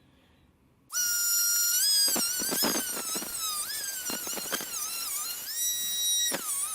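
Dremel rotary tool starting up about a second in with a high whine. Its pitch sags and recovers again and again as it cuts through a screw.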